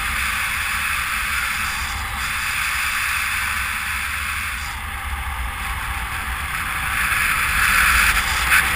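Wind rushing over the camera microphone during a fast speed-wing descent, a steady rush that eases off in the middle and swells louder again near the end.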